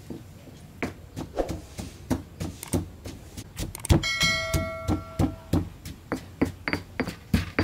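Stone pestle pounding garlic and black peppercorns in a heavy stone mortar, dull thuds at about three strikes a second. About four seconds in, the loudest strike comes with a brief bell-like ring.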